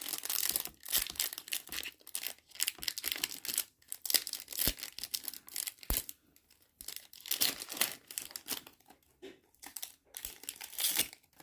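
Foil booster pack wrapper of a trading-card pack being crinkled and torn open, a string of short, irregular rustles and tears.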